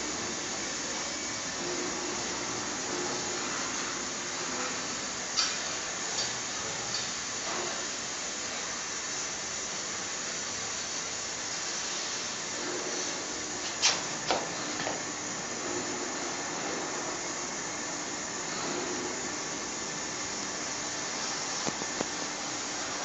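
Coconut shell charcoal briquettes burning in a stove burner: a steady rushing hiss, with a few sharp clicks scattered through it, the loudest two close together about halfway through.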